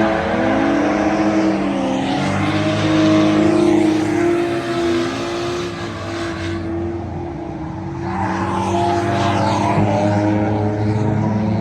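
Drift cars running on track, their engine revs rising and falling over a steady rush of tyre and exhaust noise. The noise thins for a moment a little past the middle, then the revs pick up again.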